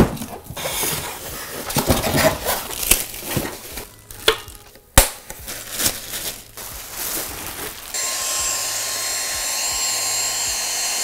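A cardboard shipping box and its packaging being opened and handled: irregular knocks, scraping and rustling, with a sharp knock right at the start and another about five seconds in. For the last three seconds a steady hiss takes over.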